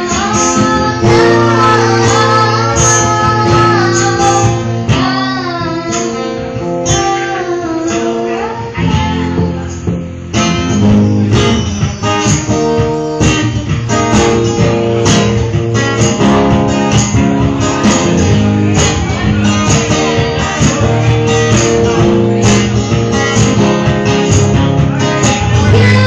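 Live acoustic guitar being strummed, with a voice singing along, clearest in the first several seconds.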